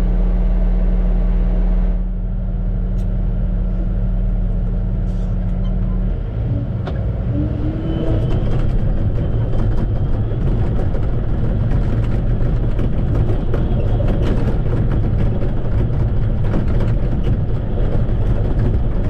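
Heavy diesel earthmoving machinery running: a steady engine drone that, about six seconds in, gives way to a rougher, uneven rumble, with a brief rising whine just after the change.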